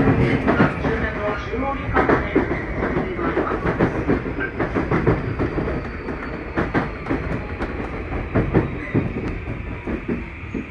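Tokyu 2020-series electric train heard from inside the car, running with its wheels clacking and knocking over rail joints and points. The running noise eases off as the train slows to a stop.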